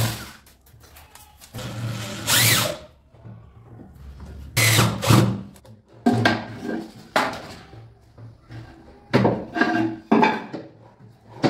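Handheld electric drill driving screws in several short bursts, fixing a metal telescopic drawer slide to a wooden cabinet side.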